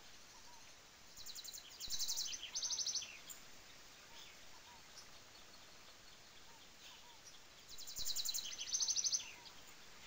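A songbird singing two quick, trilled phrases, one about a second in and another near the end, over a faint steady hiss of falling water.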